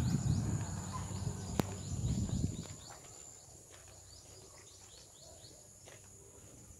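Rural outdoor ambience: a steady high insect drone with rapid short falling chirps from small birds, several a second. A low rumble on the phone microphone fills the first two and a half seconds, then drops away.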